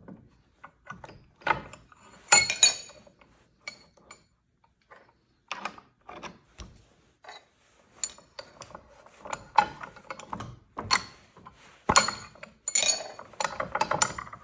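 Antique cast-iron bench vise being worked shut by its sliding handle: irregular metal clicks, rattles and ringing clinks, busiest and loudest near the end.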